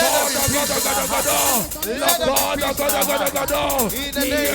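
Many voices praying aloud at once, overlapping and unintelligible, over background music.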